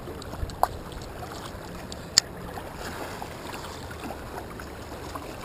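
Shallow surf water lapping and sloshing close to the microphone, with two short sharp clicks, the louder one about two seconds in.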